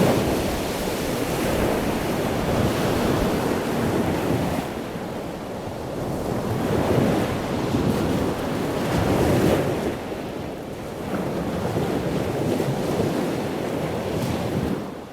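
Ocean surf: waves breaking and washing in a continuous rushing noise that swells and eases every few seconds, with wind blowing across the microphone.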